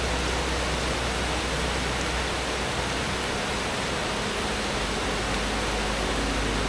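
Steady, even rushing of water, with a low rumble underneath.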